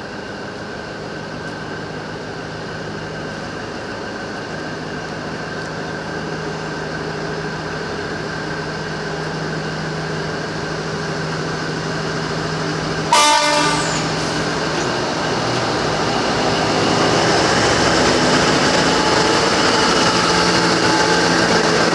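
Alsthom diesel-electric locomotive (ALS 4119) pulling a passenger train out of the station, its engine running steadily and growing louder as it approaches. It gives one short horn blast a little past halfway, followed by a heavier rumble of engine and wheels as it draws past.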